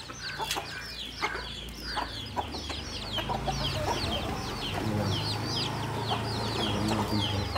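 Native (nattu kozhi) chicks peeping without a break: a rapid series of short, high, downward-slurred cheeps, several a second.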